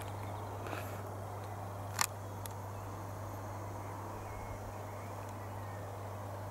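Camera handling clicks while the camera is swung up and zoomed: one sharp click about two seconds in and a fainter one just before a second in, over a steady low hum and outdoor hiss.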